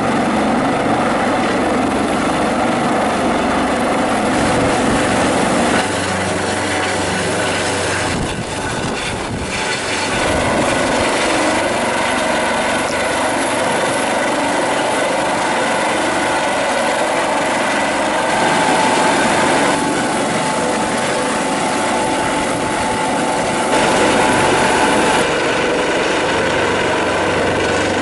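Rescue helicopter hovering low overhead: steady noise from its rotor and turbine engines, which shifts in level abruptly a few times.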